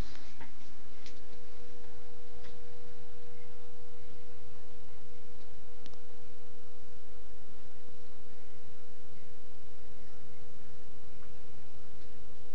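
One steady mid-pitched tone, held unchanged throughout, with a few faint clicks early on.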